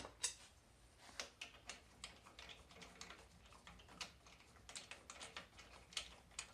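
Faint, irregular light clicks and taps, a few a second, of hand tools being worked on metal.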